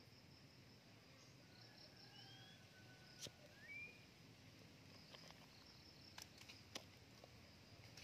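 Faint whistled calls of a drongo: two short rising whistles and one long even whistle, over a steady high buzz of crickets, with a few faint clicks in the second half.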